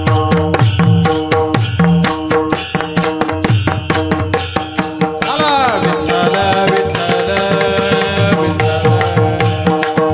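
Warkari kirtan music: a mridang drumming a rhythmic accompaniment over a steady held drone. A sung vocal line glides in about halfway through.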